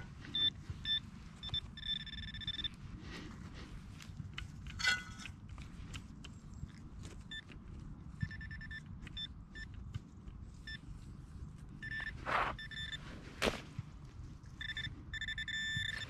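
Handheld metal-detecting pinpointer beeping in runs of short, high, steady-pitched tones as it is probed through loose soil in a dig hole, signalling metal in the soil. The beeps come faster and almost join up near the end, between a few brief scrapes of soil and hands.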